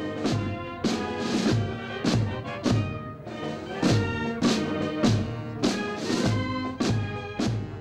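Brass band playing a march: tuba, trumpet and clarinet over a steady, even beat.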